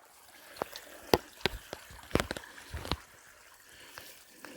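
Water dripping into standing water inside a flooded mine adit: a dozen or so irregular plinks, bunched in the first three seconds, over a faint trickle.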